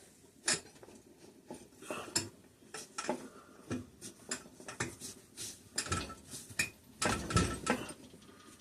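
Irregular metal clinks and knocks of hand tools and engine parts being handled against each other on a disassembled engine, with a few louder clunks near the end.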